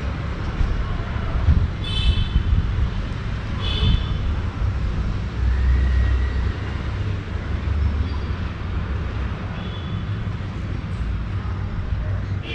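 Distant city traffic ambience: a steady low rumble, with a few short high chirps about two and four seconds in.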